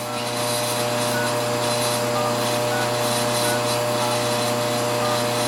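Steady machine hum in a machine shop, with faint rubbing and light regular ticks as a hand tap is worked in a part held in a lathe chuck that is turned by hand, the tap having bottomed out in its hole.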